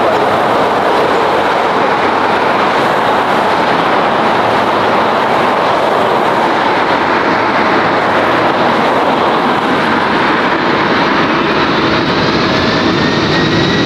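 A taxiing Boeing 747-8's four GEnx-2B jet engines at taxi power: a steady rumble and hiss as the aircraft rolls past, with a faint rising whine coming in near the end.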